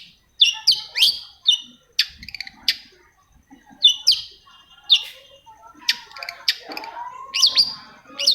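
Long-tailed shrike (cendet) calling: a string of short, sharp chirps and scratchy notes at irregular intervals, with a lower, drawn-out sliding note near the end.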